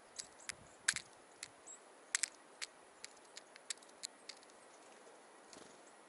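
A varied tit picking seeds from a small metal tin: irregular sharp clicks and taps of beak and seeds on the metal, about a dozen in four seconds, then stopping.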